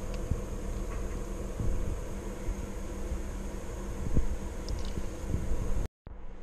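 A steady mechanical hum, fan-like, with a few light knocks standing out of it. The sound cuts out for a moment near the end and comes back quieter.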